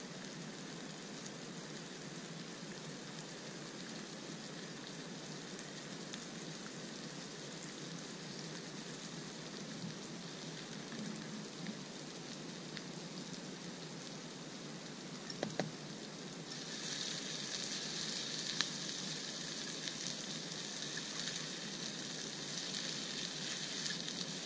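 Food sizzling in a small frying pan on a camp stove, the sizzle turning much louder about two-thirds of the way through. A couple of sharp knocks, like a utensil against the pan, come just before.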